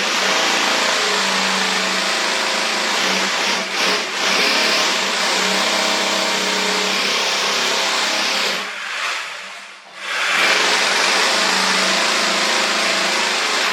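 Electric drill boring into a concrete wall, a loud steady motor whine over grinding, in two runs with a short break about nine to ten seconds in.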